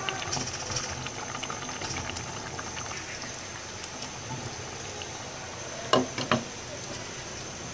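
Pot of khichuri (rice, lentils and water) boiling with a steady bubbling crackle, having just come to the boil. About six seconds in, a glass lid clinks twice as it is set on the pot.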